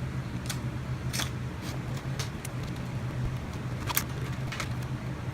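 Small sharp clicks and plastic snaps, about seven of them, the loudest about four seconds in, from laptop DDR3 RAM modules being unclipped and handled, over a steady low hum.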